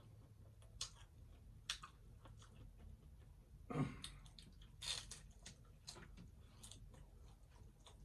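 A person chewing hard-shell taco, with scattered crisp crunches and wet mouth clicks; the loudest, deeper crunch comes about four seconds in.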